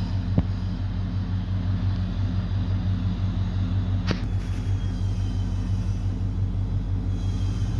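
2011 GMC Sierra's engine running steadily at idle, an engine the shop is diagnosing for a misfire and reduced power. Two sharp clicks, one just after the start and one about halfway through.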